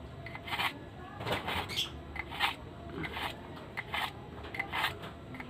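A small pocket-knife blade drawn again and again through the carbide slot of a compact 'Diamond Tapered' pull-through sharpener, which bites the steel. It makes short scraping strokes at about two a second.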